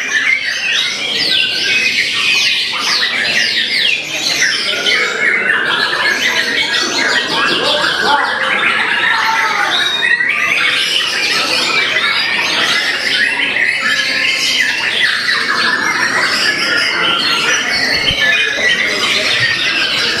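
White-rumped shama singing in its contest cage among many other caged songbirds singing at once, making one continuous, dense mass of rapid chirps, trills and whistles with no pause.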